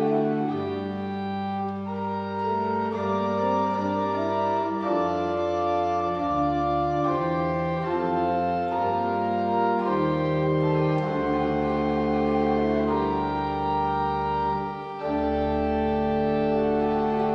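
Pipe organ playing a slow polyphonic ricercar: several voices in long held notes over a bass line that moves every second or two. About 15 seconds in the sound briefly drops, then a new full chord is held.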